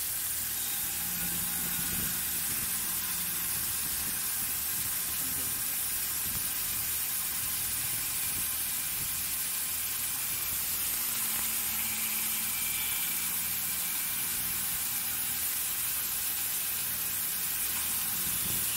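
CNC machining center milling an aluminium plate with a small end mill, ramping down into the cut, under a steady hiss of coolant mist spraying at the tool. A low machine hum runs beneath it.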